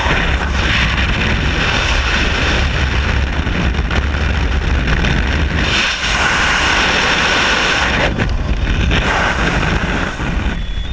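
Freefall wind rushing over an action camera's microphone: loud and steady, buffeting, with brief dips about six and eight seconds in.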